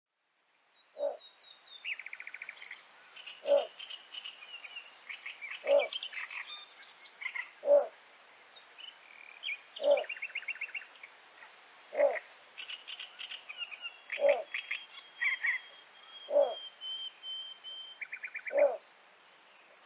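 Little bittern calling: a short, low single note repeated about every two seconds, nine times, the steady advertising call of a male. Small reed birds chirp and give rattling trills throughout.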